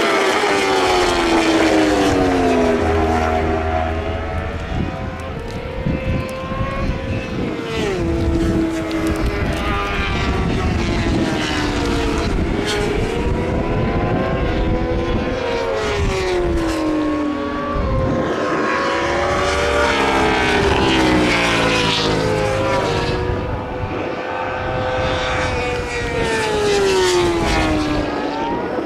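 Racing motorcycles of the superbike and supersport classes passing one after another at speed. Their engine notes climb and fall in pitch again and again as they rev, shift and go by.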